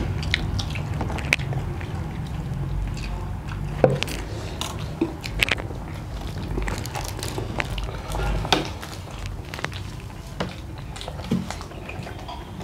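People chewing and eating momos and spicy noodles, with scattered short clicks of forks and fingers against steel plates over a low steady hum.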